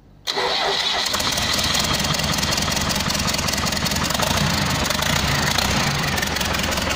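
Diesel engine on a test stand after a repair, starting abruptly about a third of a second in and then running loud and steady.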